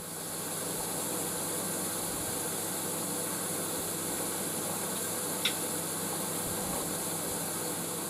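Steady hiss of background noise, with one short click about five and a half seconds in.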